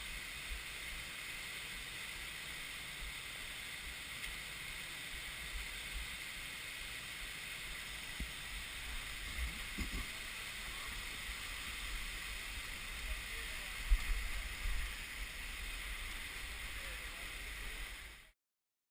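Steady rush of waterfall and river water, with irregular low rumbles and bumps and one sharper knock about three-quarters of the way through. The sound cuts off suddenly near the end.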